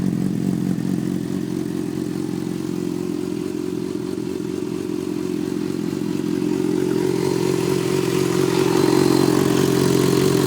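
Yamaha FZ6's inline-four engine running steadily with a ticking noise, which the owner wonders is the normal tick these bikes are known for. It gets a little louder over the last few seconds.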